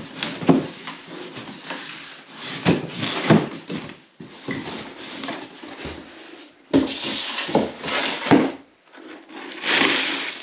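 A long cardboard shipping box being opened and handled: a series of knocks and scrapes as the cardboard lid is lifted off and the contents shift, with rustling of loose plastic strapping being gathered near the end.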